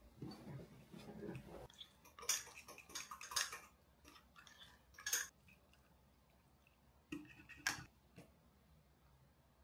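Pancake batter being stirred in a glass measuring cup: a utensil scraping and clicking against the glass, in irregular bursts. A couple of short knocks come near the end.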